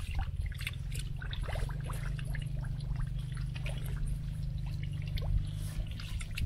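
Wet mud squelching and water trickling as hands dig through mud and a tangle of sunken branches, with many small irregular wet clicks over a steady low hum.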